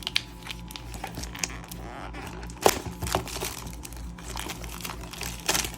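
Plastic shrink wrap crinkling and tearing as it is pulled off a trading-card blaster box, with scattered sharp clicks and cracks from the wrap and cardboard, the loudest about two and a half seconds in.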